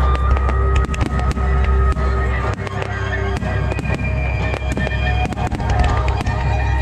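Fireworks bursting and crackling in rapid, irregular succession, with music playing along underneath.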